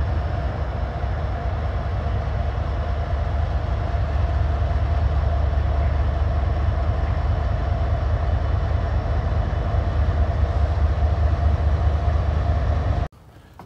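Norfolk Southern diesel locomotives idling on a bridge: a steady low rumble with a faint steady hum above it. It cuts off suddenly near the end.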